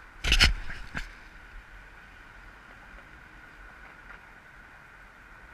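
Steady wind and rolling noise while riding a bicycle, with one loud sharp clack about a quarter second in and a smaller click about a second in.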